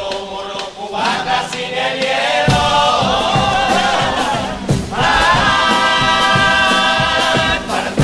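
A chirigota carnival chorus of men singing together to Spanish guitars. A bass drum and cymbal come in with a steady beat about two and a half seconds in, and the voices then hold a long chord near the end.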